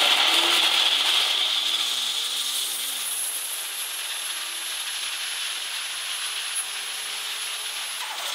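Turbocharged engine of a Holden Rodeo running steadily, heard from the open engine bay, its sound slowly easing off. A thin, very high whine rises briefly about two and a half seconds in, then holds until near the end.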